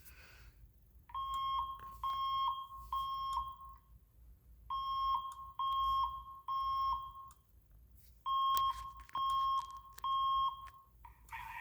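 SafePath voice evacuation system's alert tone sounding through a fire alarm speaker: three rounds of three short, even beeps, the temporal-three evacuation pattern, played ahead of the spoken evacuation message.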